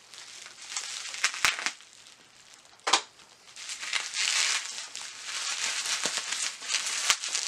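Plastic bubble wrap crinkling and rustling as it is handled and cut open with a hobby knife, with a few sharp clicks, the loudest about three seconds in.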